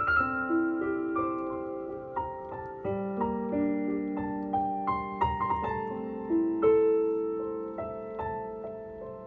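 Slow, gentle piano music: single notes struck one after another and left ringing, growing gradually quieter.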